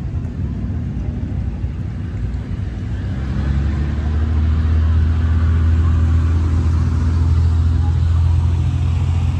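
Low, steady engine rumble of a motor vehicle that grows louder about three and a half seconds in, over the rush of shallow river water.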